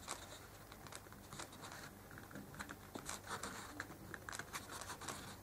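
Faint, irregular small clicks and rustles of hands handling a neckband earphone's cable and earbuds, pulling them from the slots of a cardboard box tray.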